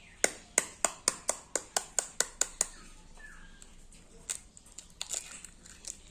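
A quick run of about ten sharp, evenly spaced knocks, roughly four a second, from a kitchen utensil striking a bowl or board while preparing the marinated chicken, then a few faint clinks.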